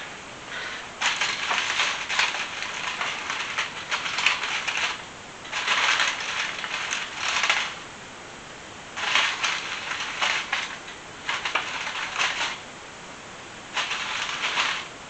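Crunching and rustling from kitchen work, in five spells of one to four seconds each with short pauses between them.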